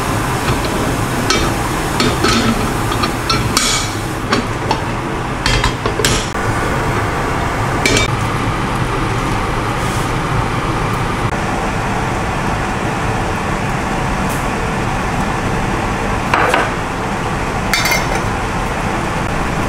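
Kitchen clatter over a steady hiss: scattered sharp clinks and knocks of a cast iron waffle pan, plate and utensils, most in the first eight seconds and twice more near the end.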